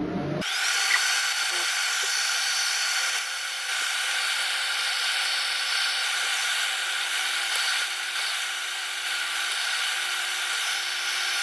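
Airbrush spraying paint: a steady high hiss of air that starts about half a second in and holds an even level.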